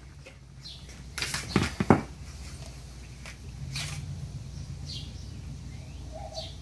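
Plastic wall-upholstery track and a hand miter cutter being handled: a quick cluster of clicks and knocks about a second and a half in, then a single tap near four seconds. Faint short high chirps recur about once a second over a low steady hum.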